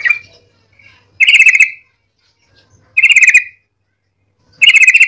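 Yellow-vented bulbul (trucuk) in full song: three short phrases, each a rapid chattering run of repeated notes lasting about half a second, coming about every second and a half to two seconds. The tail of an earlier phrase is heard at the very start.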